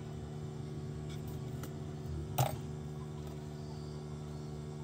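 Steady low electrical hum from workbench equipment, with a single sharp click about two and a half seconds in as steel tweezers set down the reballed BGA chip.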